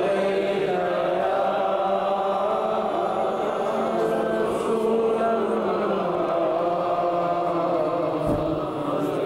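A man chanting a devotional Urdu poem in the Sufi naat style, with long held notes that waver and bend in ornamented turns.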